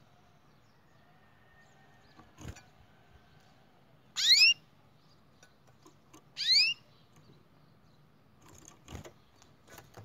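Canary giving two loud call notes about two seconds apart, each a quick upward-sweeping tweet, with a couple of light knocks from the cage.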